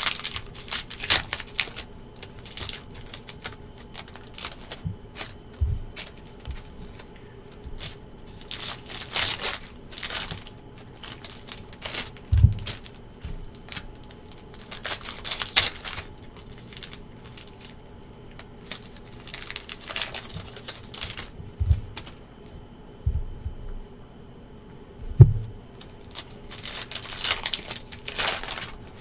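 Basketball card pack wrappers being torn open and crinkled, with cards handled, in short rustling bursts every few seconds. Several soft thumps come between them, the loudest about 25 seconds in.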